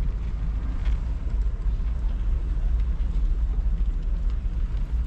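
Low, uneven rumble of wind buffeting the camera's microphone as it moves.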